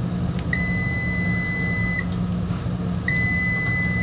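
Hanmatek DM20 multimeter's continuity beeper sounding twice, each a steady high beep of about a second and a half, over a steady low hum.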